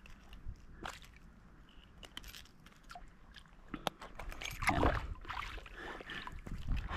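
Handling noises of a hooked snapper being held and the hook worked out: scattered small clicks and rustling, growing louder and busier a little past the middle.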